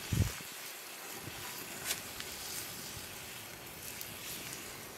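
Pot roast sizzling in a Dutch oven over a campfire: a steady hiss with a few faint crackles, and a dull thump just after the start.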